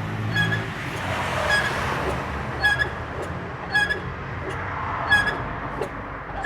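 Rear drum brakes of a 2011 Hyundai Tucson 2.0 scraping as the brake pedal is pressed, with a short squeak repeating about once a second over the low hum of the engine. The rear brake shoes are worn through their linings to the metal and are scoring the drums.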